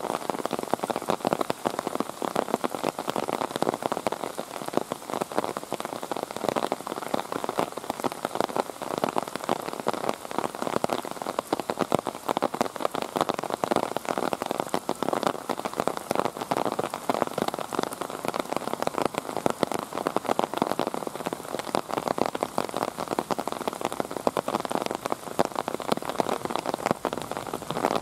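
Steady rain: a dense, unbroken spread of drops striking close by, with no rhythm or tone.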